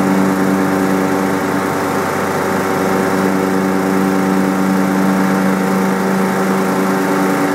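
Small engine running steadily at one constant speed, with no change in pitch, as a grounds-care machine is worked on a baseball infield.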